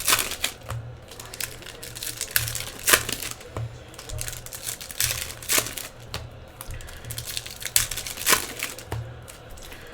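Trading card pack wrappers crinkling and tearing as hobby packs are opened, in irregular crackles.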